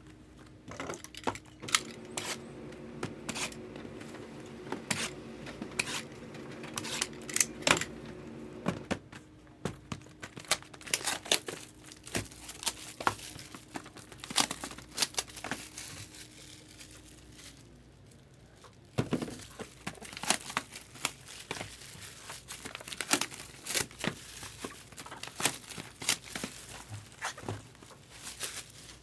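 Plastic wrapping on trading-card boxes and packs being torn and crumpled by hand: irregular crackles and snaps throughout. A low steady hum runs under the first half and stops about 17 seconds in.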